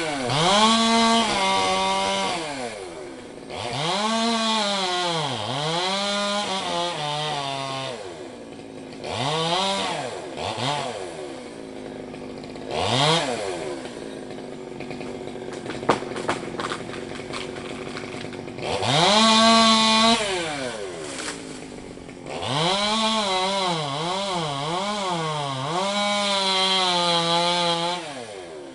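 Chainsaw engine revving up to full throttle and dropping back to idle again and again. When held at speed its pitch wavers and dips, as under cutting load, with a longer low-idle stretch midway.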